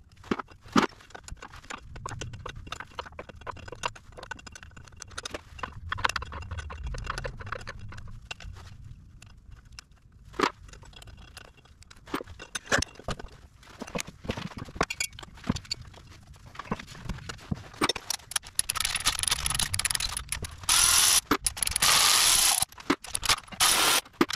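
Scattered metallic clicks and knocks of hand work on the snowcat's pinion nose-cone bolts. From about three quarters of the way through, a Milwaukee M12 Fuel cordless ratchet runs in bursts, loudest near the end, as it turns out the bolts.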